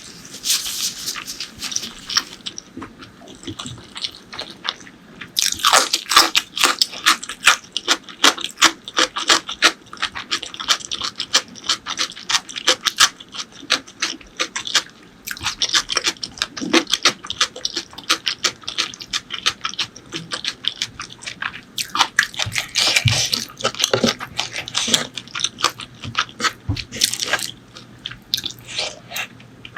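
Close-miked eating sounds of a person chewing spicy pork leg curry with rice: a dense run of wet mouth clicks and smacks, easing off briefly a couple of times.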